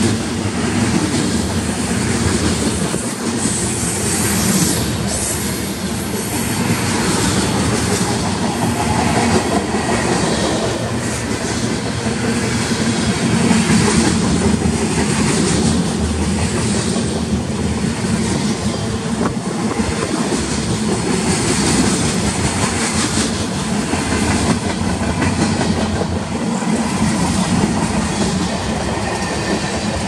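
Freight cars of a manifest train rolling past close by: a steady rumble and clatter of steel wheels on the rails, going on without a break as covered hoppers, gondolas and tank cars go by.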